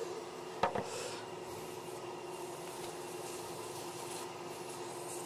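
Wood lathe running steadily with a constant hum while sandpaper is held against the spinning soft maple box top, giving an even hiss. A single sharp click a little under a second in.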